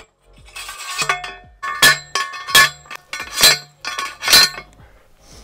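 A steel T-post being driven into rocky ground with a manual post driver, metal striking metal. Each strike gives a ringing clank, and the four loudest come a little under a second apart after a few lighter knocks.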